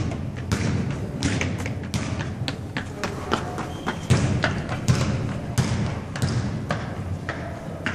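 Running footsteps: irregular thumps and slaps of shoes striking a hard indoor running-track floor.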